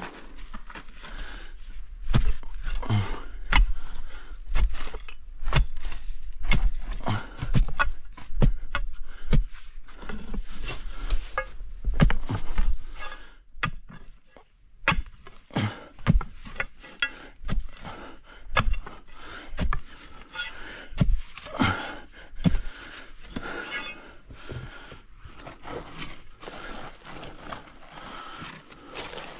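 Hand digging tools working at soil, tree roots and rock: irregular knocks, some heavy low thuds, and scraping. The strikes come thickest in the first half and thin out toward the end.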